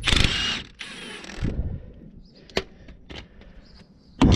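Milwaukee M18 Fuel brushless cordless impact wrench running briefly at the start to undo a suspension bolt, followed by a fainter short whir and a few light metal clicks of tools.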